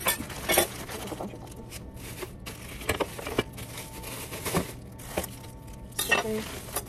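Kitchen knives in plastic sleeves handled and set down on a countertop: irregular crinkling of the plastic wrapping with scattered clicks and knocks.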